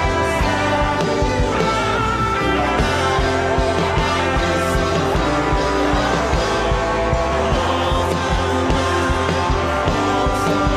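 Worship music: sustained chords held over a steady low bass line, with no words.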